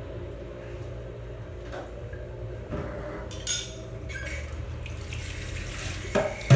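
Kitchen tap running into the sink while dishes and pans are handled, with a few clinks and knocks, the loudest near the end.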